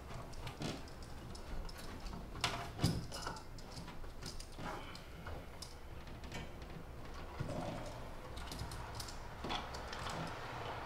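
Scattered small clicks and plastic rattles from hands fitting a cable connector into a recessed plastic in-wall media box, with a few sharper clicks about a third of the way in and again near the end.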